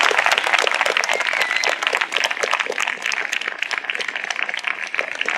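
Audience applauding, many hands clapping densely and unevenly.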